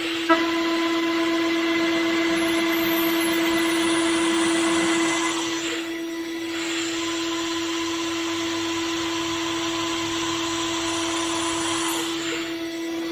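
CNC machine's spindle running with a steady whine while cutting, over a broad cutting hiss. A sharp click comes just after the start, and the cutting noise thins briefly about halfway through before picking up again.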